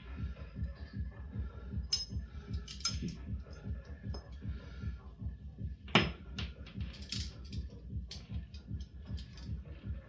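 Handcuff key and steel cuffs clicking and rattling as the key is worked in the lock of a TCH 840 handcuff, with a sharp metallic click about six seconds in. A low, steady pulsing runs underneath.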